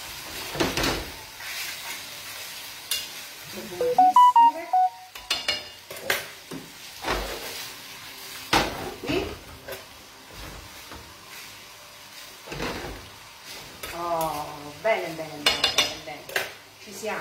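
Pappardelle being stirred in a sizzling frying pan with its sauce: a utensil scraping and clinking against the pan over a soft sizzle. A brief voice-like sound comes about four seconds in, the loudest moment, and another near the end.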